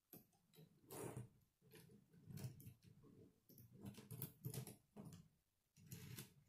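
Plastic K'nex pieces being handled and fitted together: faint, irregular clicks and rustles.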